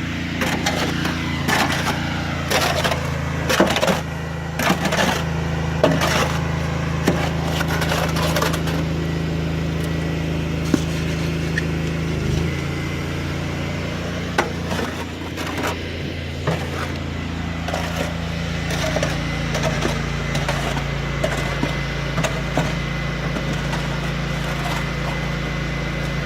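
Small engine of foundation pier-jacking equipment running steadily, its note shifting about twelve seconds in. A string of sharp metal knocks and clanks sounds over the first nine seconds, with a few more later.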